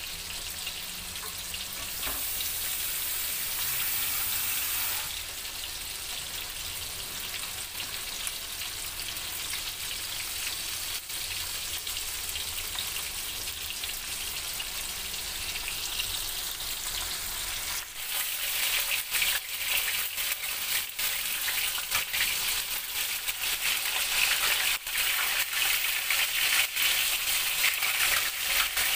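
Flour-coated chicken hearts deep-frying in hot oil: a steady sizzle that turns into louder, crackling spatter with many sharp pops from about eighteen seconds in.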